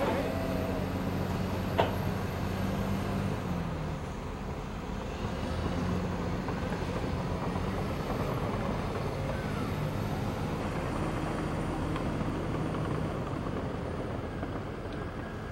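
Heavy diesel engine of earth-moving machinery running, its low hum shifting pitch in steps as it works, over a steady rush of background noise. A single sharp click sounds about two seconds in.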